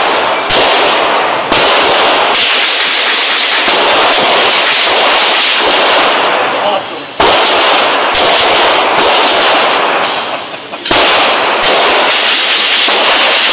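Handgun shots fired in rapid succession in an indoor shooting range, very loud and echoing, packed so close that the fire runs almost continuously with only a few brief breaks.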